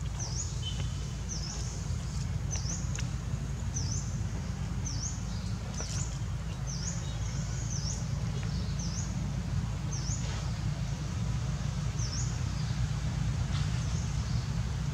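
A bird calling repeatedly in the background: short high chirps that dip and rise, about one a second, over a steady low rumble.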